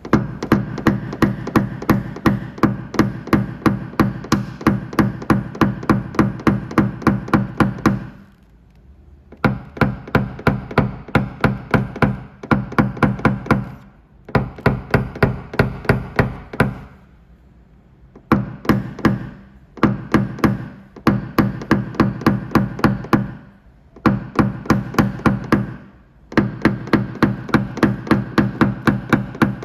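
Rapid tapping on a car door's sheet-metal panel with a paintless dent repair hammer and knockdown, about four taps a second. The taps come in runs of several seconds with short pauses between, and each tap rings with the same pitch from the panel.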